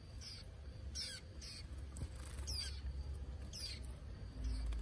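White-eyes giving short, high chirps that slide downward in pitch, about eight spread over a few seconds, over a faint low rumble.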